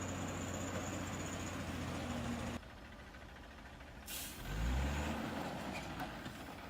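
A heavy vehicle's engine running steadily. After a sudden cut, a short hiss, then an engine rising and falling in pitch.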